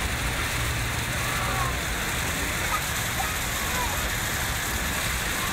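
Steady lakeside ambience: an even hiss of water and wind, with indistinct distant voices and a few faint, short high calls.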